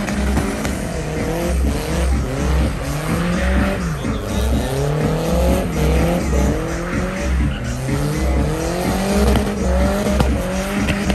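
Turbocharged Chevette with a swapped VW AP engine spinning donuts: the engine revs up and down again and again at high revs while the rear tires squeal on the asphalt. Background music with a steady beat runs underneath.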